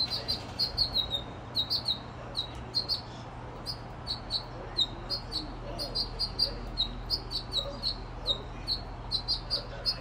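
Small songbirds chirping: a busy, continuous run of short high chirps, about three a second, over a faint steady low hum.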